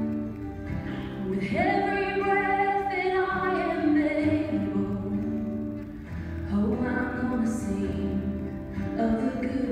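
A woman singing a slow worship song with acoustic guitar accompaniment, in phrases of long held notes.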